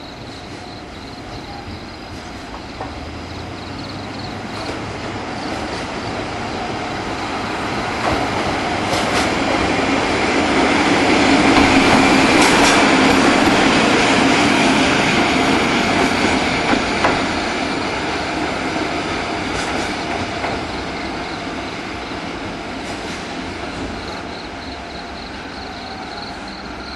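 ED76 electric locomotive running light past at low speed. Its rumble swells to a peak midway as it passes close, then fades, with a few sharp clicks of the wheels over rail joints.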